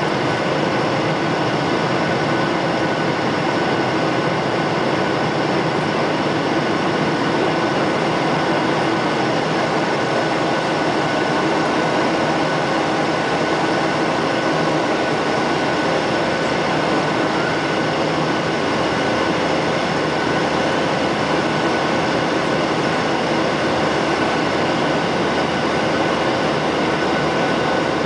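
Boeing 737-800's CFM56-7B jet engines and rushing airflow heard inside the cabin while climbing after takeoff: a steady roar with a thin steady whine on top.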